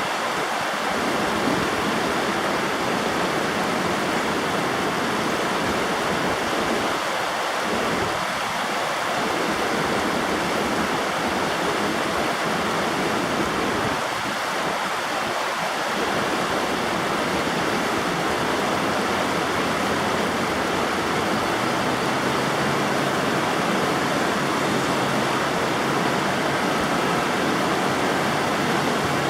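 River water rushing steadily. A faint low hum, like a distant engine, comes in about two-thirds of the way through.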